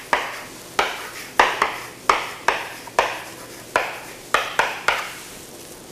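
Chalk writing on a blackboard: about a dozen sharp taps and short scrapes at uneven intervals as a word is chalked up letter by letter.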